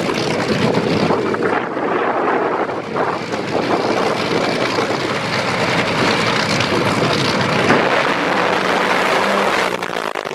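Supercharged nitromethane V8 engines of top fuel dragsters running at the starting line, a loud steady racket with wind on the microphone.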